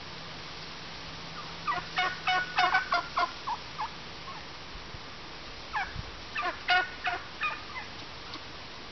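Wild turkeys calling: two series of rapid, repeated notes, one starting about two seconds in and one about six seconds in, each lasting around two seconds and trailing off into spaced notes.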